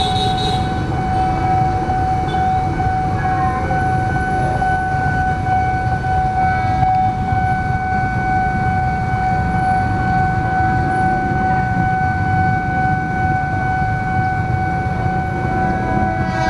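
Level-crossing warning alarm sounding one steady electronic tone without a break, over the low rumble of idling motorcycles and cars held at the closed gates. Near the end, the horn of the approaching KRL commuter train begins.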